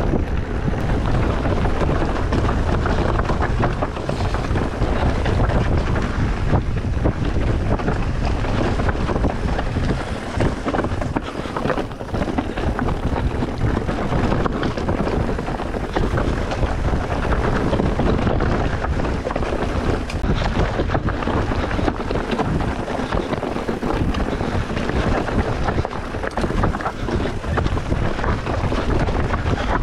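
Wind rushing over the microphone while riding an electric mountain bike down a trail, with constant rattling and knocks from the bike over the rough ground.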